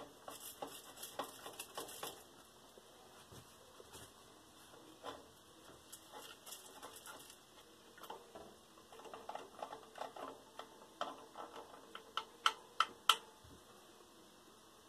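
Faint, scattered clicks and light taps as a tin can of melting wax is handled in a pot of hot water and stirred with a stick, with a few sharper clicks near the end.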